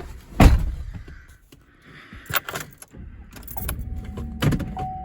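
A rifle being loaded into a pickup truck's cab: a heavy thump about half a second in, then scattered clicks and rattles. A steady high electronic tone starts a little past three and a half seconds in.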